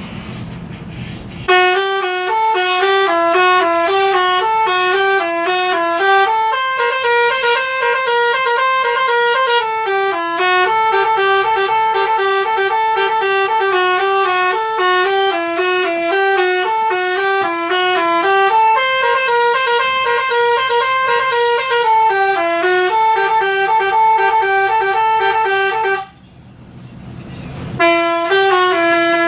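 Basuri 'telolet' musical horn playing a melody: loud, multi-toned horn notes stepping up and down in quick succession. It starts about a second and a half in after a moment of vehicle running noise. It breaks off for about two seconds near the end, with a rising rush of vehicle noise, then starts playing again.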